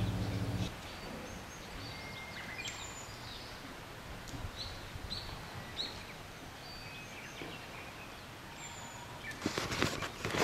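Birds chirping in short calls over a quiet, steady outdoor hiss. A low hum cuts off abruptly under a second in, and near the end comes a burst of rustling and clicking.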